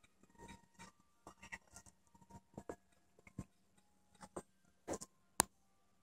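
Black-headed and white-bellied caiques scuffling about on a quilted blanket: scattered soft rustles and clicks, with one sharper click about five seconds in.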